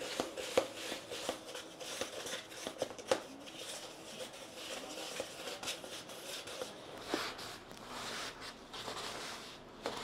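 A wooden stick stirring silicon carbide grit wetted with sodium silicate (water glass) in a plastic bucket: gritty scraping, with irregular sharp clicks and knocks as the stick hits the bucket.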